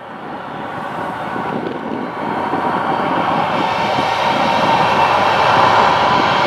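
Boeing 737-800's CFM56-7B jet engines at takeoff thrust, a steady roar growing louder throughout.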